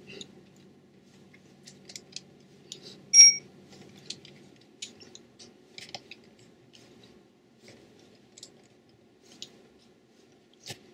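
Small screws being driven into a smartphone's plastic back frame with a small screwdriver: scattered light clicks and ticks, with one brief, louder ringing clink about three seconds in.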